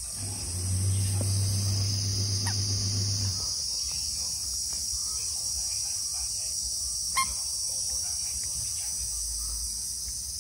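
A puppy growls low and steadily for about three seconds near the start, play-growling, over a steady high-pitched drone of insects. A single sharp click comes about seven seconds in.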